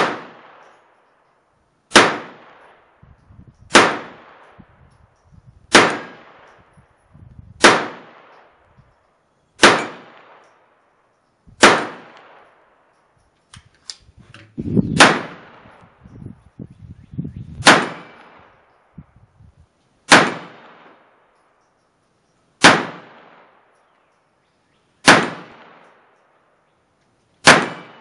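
Mauser HSc pistol in .32 ACP being fired in slow single shots, thirteen in all, about two seconds apart, each sharp crack followed by a short ringing echo. Around the middle there are a few clicks and a stretch of handling noise between shots.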